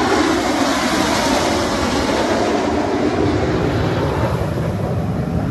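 A formation of F/A-18 Super Hornet jets flying past low overhead: a loud, steady jet roar.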